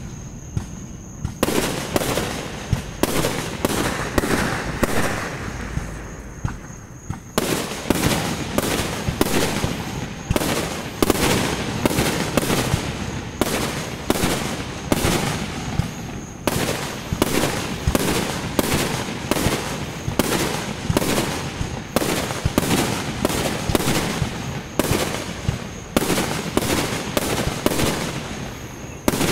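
Aerial firework shells bursting: a few scattered bangs at first, then a dense run of booms and bangs, several a second, from about seven seconds in.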